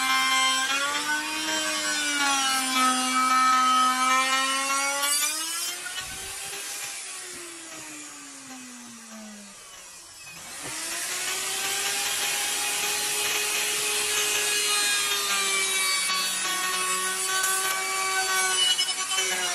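Electric plunge router (Maktec) running with a steady whine while cutting along the edge of a plywood door panel. About 6 s in it is switched off and winds down with a falling whine, then about 10 s in it starts again, spins up, and runs steady as the cut resumes.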